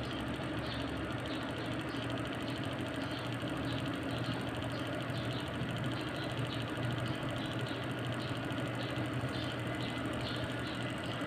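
Desktop PC running while it boots: a steady fan hum with a light, regular ticking over it, about two ticks a second.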